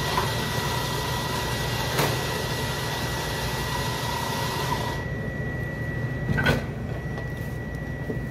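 Espresso grinder running with a steady whirr that cuts off about five seconds in, over the low hum of the espresso machine, followed by a single sharp knock.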